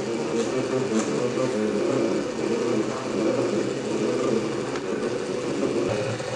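MakerBot Cupcake CNC 3D printer's stepper motors running while it prints: a steady mechanical buzz of quickly shifting tones.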